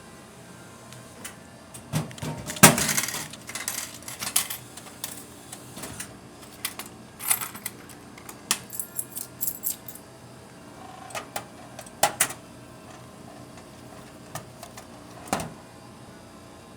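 Coins clinking and clattering in a vending machine, with a scattered series of sharp clicks and knocks from its buttons and mechanism. The sounds come in clusters, the loudest a few seconds in.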